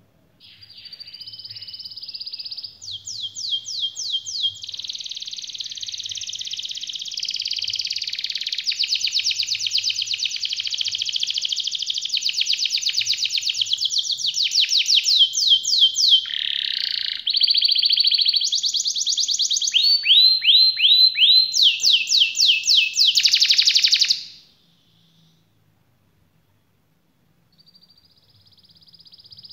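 Red canary singing a long rolling song of rapid trills, one trill type running straight into the next. It breaks off suddenly about 24 seconds in, and a soft trill starts up again near the end.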